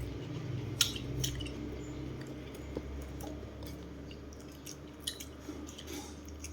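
Chewing, with a scatter of sharp clicks and crunches, the loudest two about a second in, over a low steady hum.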